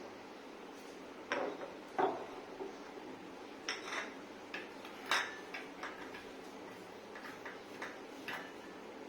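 A spoon clinking and tapping against a small dish or pan as crushed carom seed is tipped into coconut oil. It makes a few light, irregular knocks, the loudest about two and five seconds in.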